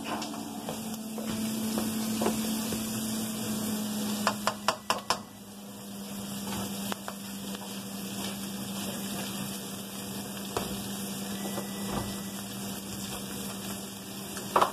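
Diced bacon and onion sizzling in a frying pan over a steady low hum, with a quick run of sharp clicks about four seconds in.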